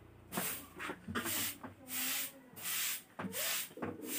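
Fingers scraping and rubbing rice and curry around a steel plate while eating by hand, in short repeated rasping rubs.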